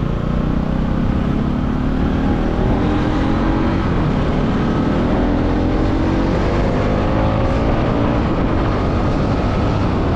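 Motor vehicle engine pulling under load, its pitch climbing steadily as it accelerates, over low road rumble and wind noise.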